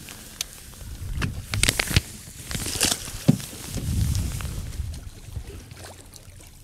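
A walleye let go over the side of a boat, splashing into the lake, with a few sharp knocks against the boat and low wind and water noise.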